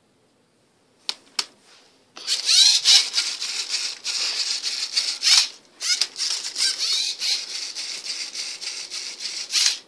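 LEGO Mindstorms NXT servo motors of a MindCuber robot whirring through their gears as the robot starts scanning the Rubik's cube, turning it on its turntable and moving the sensor arm. Two sharp clicks come about a second in, and the whirring starts about two seconds in and runs on with brief pauses.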